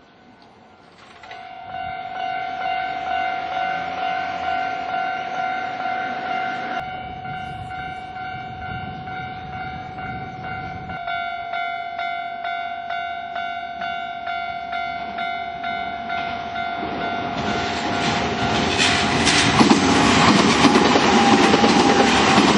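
A Japanese level-crossing warning bell starts about a second in, ringing as a rapid, even electronic pulse. An electric train then approaches and runs over the crossing with clattering wheels, growing loud near the end.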